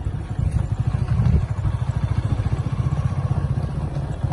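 Vehicle engine running steadily as it drives slowly along a site road, a low rumble with rapid even pulsing.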